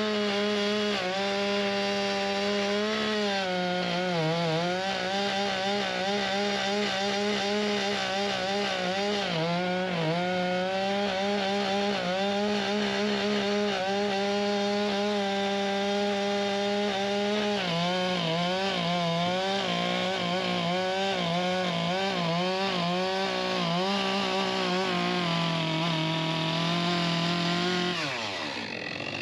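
Frick circular sawmill running hard, its pitch dipping briefly several times as the saw takes load in maple. Near the end the pitch falls steeply as the machine winds down.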